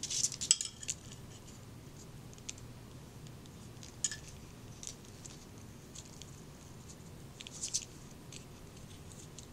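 Thin insulated wire being wound by hand around a small compass: faint scratching and clicking of wire against the compass case, with a quick cluster of clicks at the start, a single click about four seconds in and a few more near the end.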